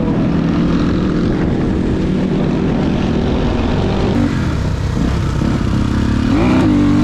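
Dirt bike engine running under way at a steady pitch with wind rush, heard from the rider's seat; about six and a half seconds in the engine revs up and its pitch rises.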